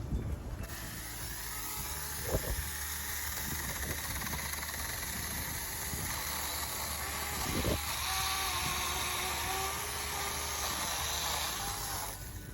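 Saker 20-volt battery mini chainsaw running and cutting through a thorny tree limb, a steady high whirring hiss with a faintly wavering tone underneath. It starts about half a second in and stops near the end. The limb is pinching the chain a little as it cuts.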